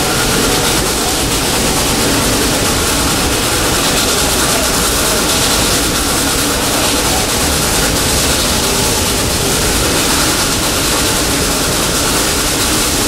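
Narrow-gauge steam train running, heard from an open passenger car: a steady rumble and rattle of the cars on the rails with the locomotive working ahead.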